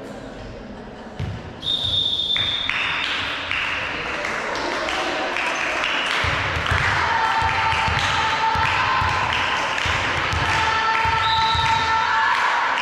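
A short, steady whistle blast about a second and a half in, then many voices shouting and cheering at once, loud and sustained, with irregular thuds underneath from partway through.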